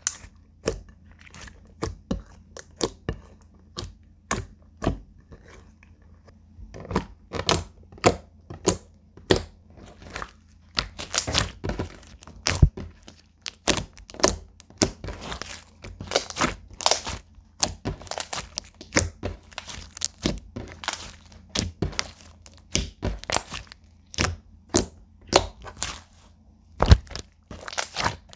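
Clear slime being kneaded and pressed by hand, giving an irregular run of sharp pops and clicks. The pops come more thickly from about seven seconds in.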